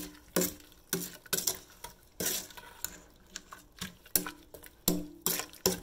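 A red spoon stirring a wet, chunky mixture of diced onion and mango in a stainless steel saucepan: irregular knocks and scrapes against the pan, about two a second, several leaving a short ring from the metal.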